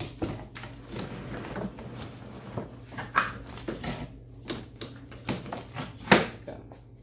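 Plastic knocks and fabric rustling as a grass-catcher bag is hooked onto the back of a Ryobi 40-volt lawn mower, with a sharp clack just after six seconds in as the mower's rear cover comes down onto the bag.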